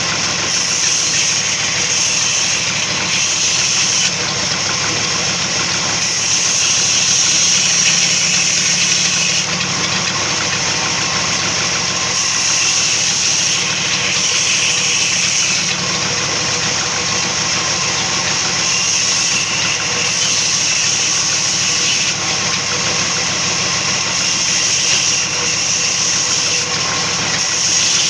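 Sawmill saw running and cutting wood, a loud, steady mechanical noise with a high hiss that swells and eases slightly.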